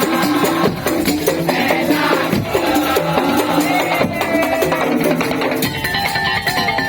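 Music with busy hand percussion and shakers over pitched instruments; near the end it changes to longer held notes.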